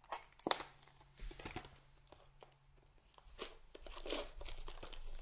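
Trading-card packaging being opened by hand: scattered sharp crackles and small tears of wrapper and box packaging, growing busier over the last couple of seconds.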